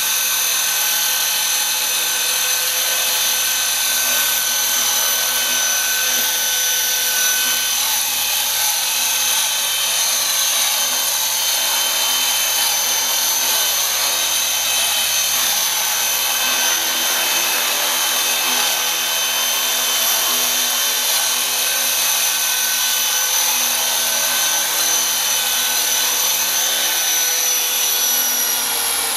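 Small electric RC helicopter in a hover: a steady, high-pitched whine from its motor and spinning rotors. Right at the end the pitch starts to fall as it spools down.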